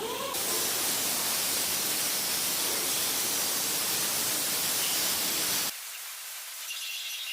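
A loud, steady hiss of noise that cuts off suddenly near the end.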